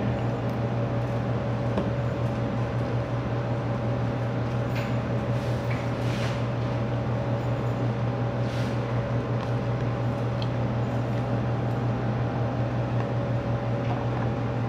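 Window air conditioner running with a steady hum. A few faint clicks of a spoon against a plastic food container come through over it.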